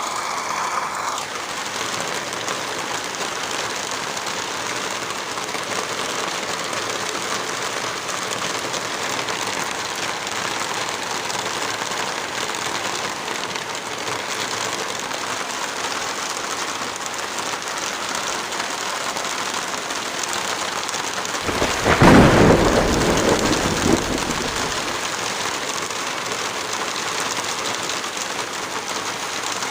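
Steady rain falling. About 22 seconds in, a roll of thunder peaks sharply and rumbles off over the next three seconds or so.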